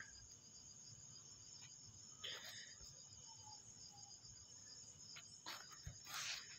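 Near silence: room tone with a faint, steady high-pitched chirring. There is a soft rustle about two seconds in and another near the end.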